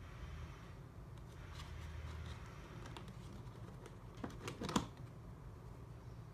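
Hands handling a RodeLink wireless receiver in its cardboard box insert: light scrapes and taps, then a quick cluster of clicks and rustle about four and a half seconds in as the plastic unit is pulled out of its slot, over a low steady hum.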